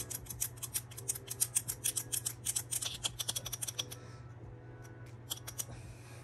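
A rapid run of light, sharp clicks, about eight a second, thinning out to a few scattered clicks after about four seconds, over faint background music.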